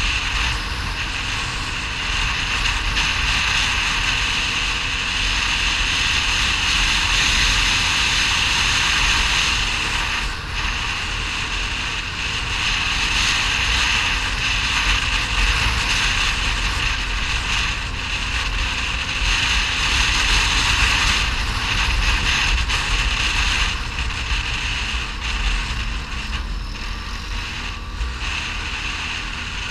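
ATV engine running steadily while riding, with wind noise on the microphone.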